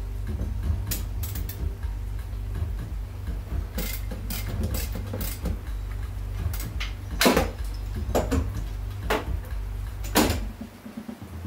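Scattered clicks and knocks of wiring and parts being handled in a pickup's engine bay during a teardown, the loudest about seven and ten seconds in, over a steady low hum.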